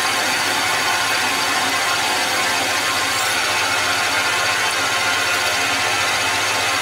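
Metal lathe running with a twist drill in the tailstock cutting into the spinning metal workpiece: a steady hiss and whir of motor, spindle and cutting with no breaks.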